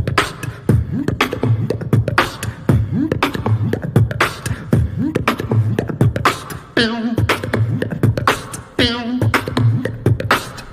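Beatboxing in an Indian style: a steady rhythm of mouth-made bass kicks and snare-like clicks. Short sung phrases with a wavering pitch come in twice, at about seven and nine seconds in.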